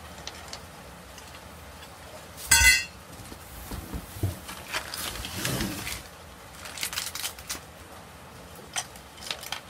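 Metal rack tubes clanking together once, loud and ringing, about two and a half seconds in. Then scattered lighter knocks and rustling as parts and the cardboard box are handled.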